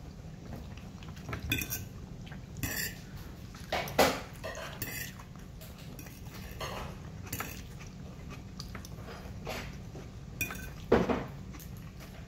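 Metal fork scraping and clinking against a plate of rice as food is scooped up, in scattered short strokes a second or so apart. The sharpest clinks come about four seconds in and near the end.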